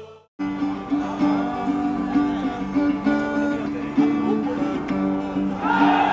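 Acoustic guitar plugged in through a cable, playing a steady repeated pattern of picked notes. A person's voice comes in near the end.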